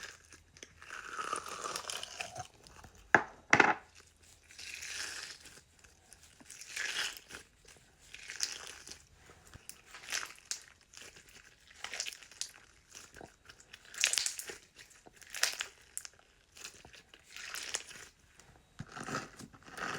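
Slime being squished, stretched and poked by hand: repeated sticky, crinkly squelches coming in swells every second or two, with a couple of sharp pops a few seconds in.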